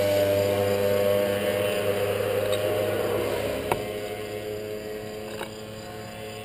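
A motor's steady, low hum, gradually fading away.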